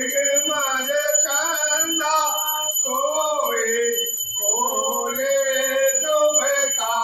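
A man singing a devotional song solo with no accompaniment, in long held, wavering notes with a short breath break about four seconds in. A steady high-pitched whine runs underneath.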